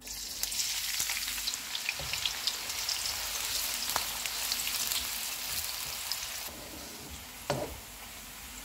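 Sliced onions dropped into hot oil in a wok, sizzling and crackling at once as they are stirred with a wooden spatula. The sizzle eases somewhat near the end, where one sharp knock sounds.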